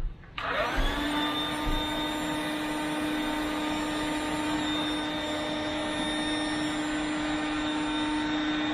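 Electric air pump switching on about half a second in and then running steadily with a constant hum, pumping air through a hose into an inflatable kayak boat.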